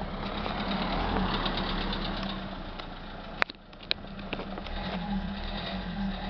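Renault Mégane III 1.5 dCi 85 hp diesel engine idling with a very metallic clack-clack-clack, a noise heard much more at low revs. A single sharp click about three and a half seconds in.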